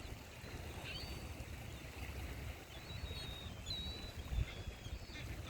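Seaside ambience: a steady low rumble of surf and wind on the microphone, with a stronger gust about four seconds in. Several faint, short high-pitched bird chirps sound over it.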